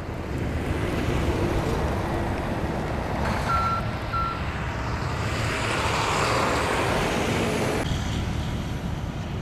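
Flatbed tow truck's engine running under load as it winches a stuck SUV out of a snowbank. Two short beeps come about three and a half and four seconds in, and a louder rushing noise builds from about five seconds and cuts off suddenly near eight seconds.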